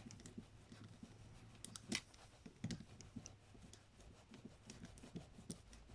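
Faint, scattered light clicks and ticks of a Phillips screwdriver and small metal parts as the float-bowl screws of a Mikuni VM carburetor are snugged down, over a low steady hum.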